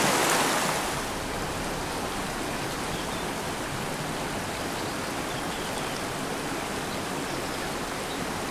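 Small mountain stream rushing over rocks: a louder riffle at first, settling about a second in to a softer, steady flow of water.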